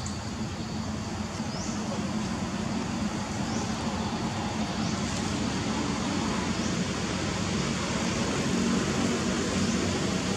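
Steady low motor rumble, like distant road traffic, under a background hiss. A short, high rising chirp comes every couple of seconds.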